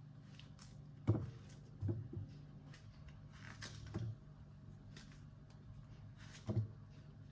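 About five dull knocks and bumps of things being handled, spread through, over a low steady hum.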